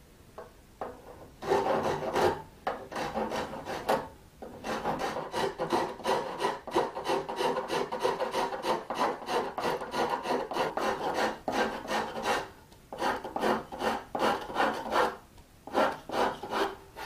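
Fine-toothed hand saw drawn back and forth in rapid short strokes across the end of a yew bow, cutting small grooves into its glue surface to roughen it for gluing. The sawing stops briefly about four seconds in and again near thirteen seconds.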